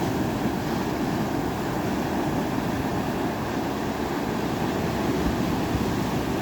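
Ocean waves washing in a steady rush, with a deep rumble.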